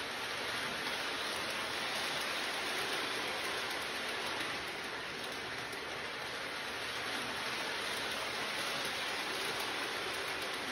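Steady rainfall hiss, even and unbroken.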